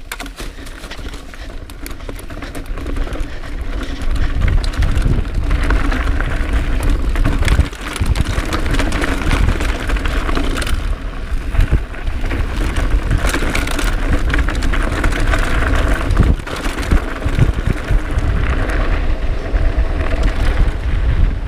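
Full-suspension mountain bike riding down a rocky, rooty trail. The tyres rattle over rocks and roots and the bike clatters, under a heavy wind rumble on the chest-mounted camera's microphone. The noise builds over the first few seconds as the bike picks up speed, then stays loud.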